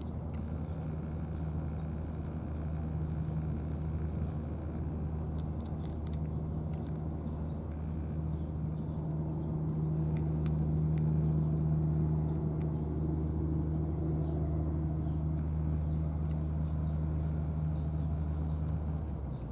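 A steady low mechanical hum, a little louder in the middle, that stops just before the end.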